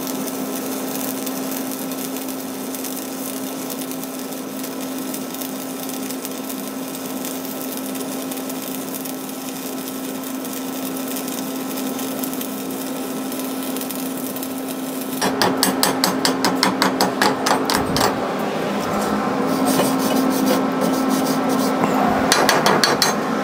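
Stick (MMA) welding arc burning a 6013 rod at about 110 amps: a steady sizzling hiss over a low hum. About fifteen seconds in the arc stops and quick rhythmic scraping strokes follow as the finished weld is cleaned.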